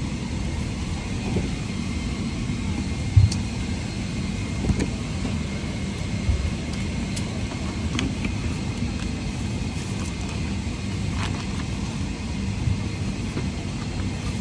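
Steady rumble of an airliner cabin: engine and airflow noise, with a faint steady high whine. A low thump about three seconds in and a few light clicks from handling.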